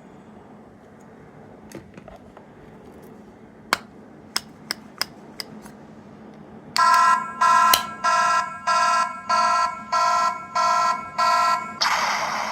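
A few light plastic clicks, then a capsule sound-effect toy's small speaker plays an electronic alarm: about eight evenly repeated two-tone beeps, like a fire alarm. A rush of hissy noise starts right near the end.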